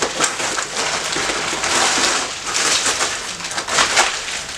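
Thin plastic bag and wrapping crinkling and rustling as it is handled and pulled open, with many small crackles.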